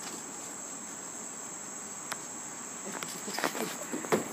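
Steady high-pitched insect chorus, with a cluster of knocks and thuds in the last second and a half, the loudest just before the end.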